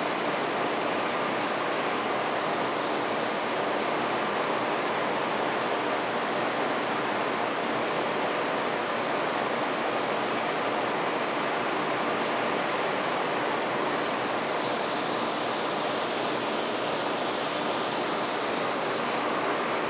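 Steady rushing hiss of a saltwater reef aquarium's water circulation, with a faint steady hum underneath.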